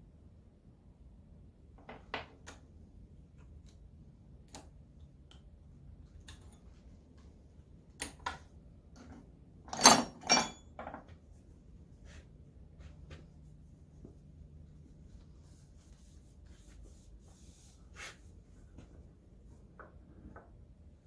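Metal engine parts and hand tools being handled on a workbench during a teardown: scattered clinks and knocks, the loudest a double knock about halfway through.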